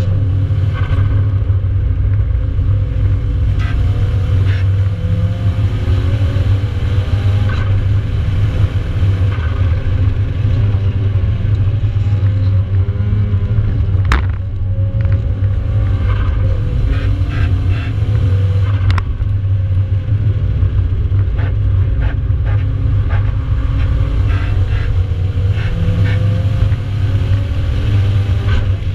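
Nissan 200SX engine under hard track driving, heard from inside the cabin: a heavy low rumble with the revs rising and falling through the corners and gear changes. A single sharp click comes about halfway through.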